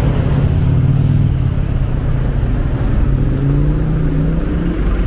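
A motor vehicle engine running close by, its pitch rising from about three seconds in as it speeds up.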